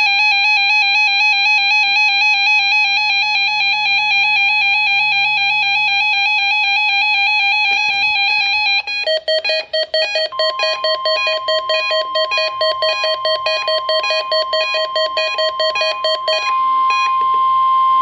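NOAA weather radio receivers sounding their alert for a Required Weekly Test: a loud, rapidly pulsing electronic beep, replaced about nine seconds in by a lower pulsing beep from another radio. From about ten seconds in, a steady tone near 1 kHz, the NOAA weather radio warning alarm tone, sounds under the beeping and carries on alone after it stops near the end.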